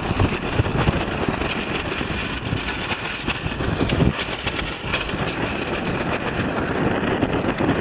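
Wind buffeting the microphone aboard a small keelboat under sail, over the wash of choppy water, with scattered light ticks.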